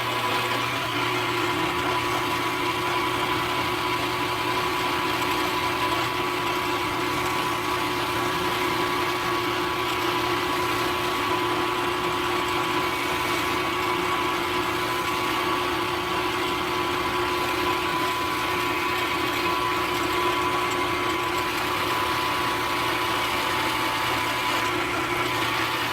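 Milling machine running steadily, a four-flute end mill taking a 30-thousandths-deep pass along a slot; a steady mechanical whine with several held tones.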